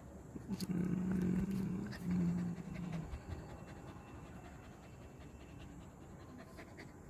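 A dog making two low, drawn-out vocal sounds, the first starting about half a second in and lasting over a second, the second shorter right after it; then quieter.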